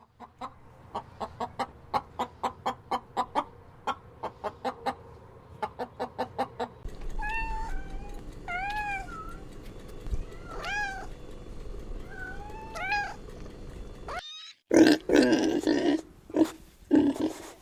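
Farm animals calling one kind after another: first a fast run of short, sharp notes for about seven seconds, then half a dozen drawn-out calls that rise and fall in pitch, then, after a brief break, louder harsh calls that dominate the end.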